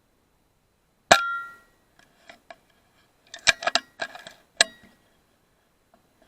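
A single shot from a PCP air rifle, a sharp crack with a brief metallic ring, followed a couple of seconds later by a quick series of metallic clicks as the rifle's action is cycled to load the next pellet.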